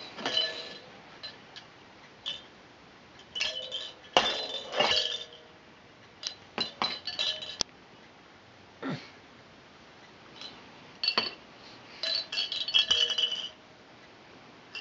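Small hard plastic baby toys clinking and rattling as they are handled and knocked about: irregular runs of short sharp clicks with brief ringing jingles, in three clusters with quiet gaps between.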